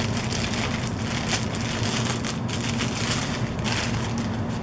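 A clear plastic bag crinkling and rustling continuously as a pistol is worked out of it by hand.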